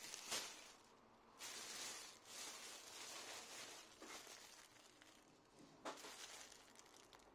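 Plastic bags crinkling and rustling as they are handled: a clear bag of dried lavender buds is lifted from a yellow plastic carrier bag and squeezed. Sharp crackles come just after the start and again about six seconds in.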